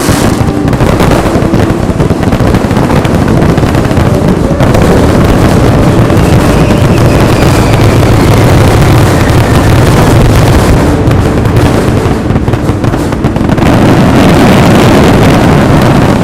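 Fireworks barrage: many shells and aerial effects bursting in rapid, overlapping succession, a continuous wall of booms and crackle, densest and loudest through the second half.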